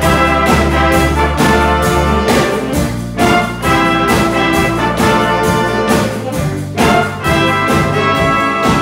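School big band playing a swing tune live: trumpets, trombones and saxophones sounding held chords over bass, guitar and drums, with a steady beat.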